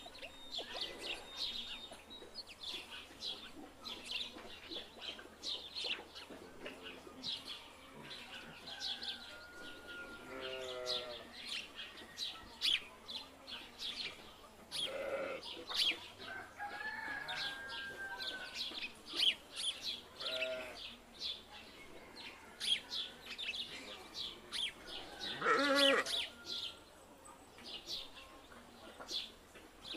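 Small birds chirping steadily, with farmyard animal calls, such as a rooster crowing, breaking in several times; the loudest call comes near the end.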